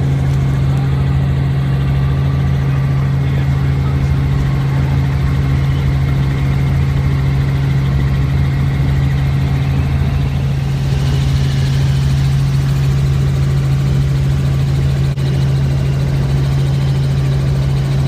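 Robinson R44 helicopter heard from inside the cabin: its six-cylinder Lycoming piston engine and rotors make a loud, steady drone with a constant low hum during lift-off and climb-out.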